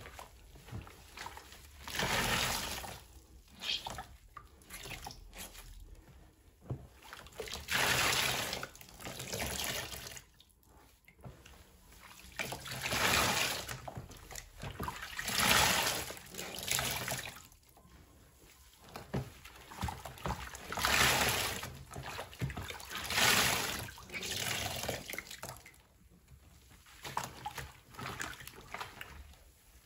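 Soapy water sloshing and squelching as hands press, squeeze and swirl large foam sponges in a basin. The sound comes in surges every two to three seconds.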